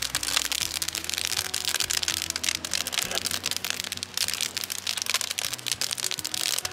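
Fire of dry twigs and grass crackling inside a mortared cinder-block burn box: a dense, steady run of sharp snaps and pops.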